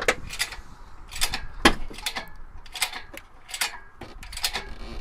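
Hydraulic trolley jack being pumped by hand, its handle and pump mechanism giving a sharp click or clank on each stroke, about eight in a few seconds, as the car is raised.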